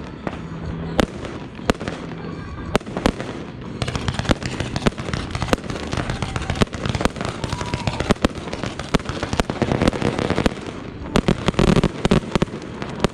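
Display fireworks going off in a rapid barrage: many sharp cracks and pops of shells launching and bursting, growing much denser about four seconds in, with a cluster of heavy booms near the end.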